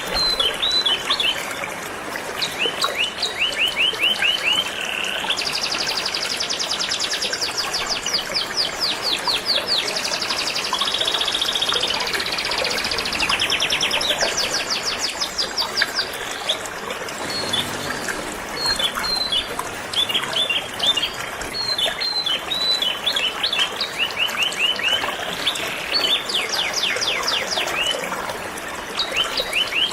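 Canaries singing in fast trills and short chirps over the steady rush of flowing river water.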